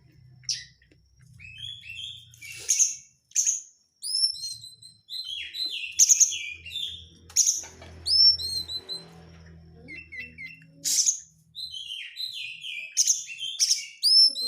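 Oriental magpie-robin (kacer) singing a dense, chattering song: quick runs of short, sharp, down-slurred whistles and chirps, with several loud piercing notes scattered through.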